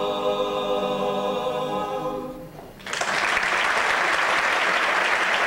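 Barbershop quartet of four men's voices holding the closing a cappella chord of a song, which fades out a little over two seconds in. The audience then breaks into steady applause.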